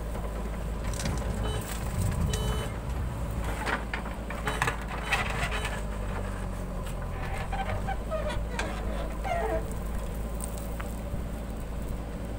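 JCB 3DX backhoe loader's diesel engine running steadily under load as the backhoe arm swings and digs, with a burst of scraping and knocking from the bucket in the soil about halfway through.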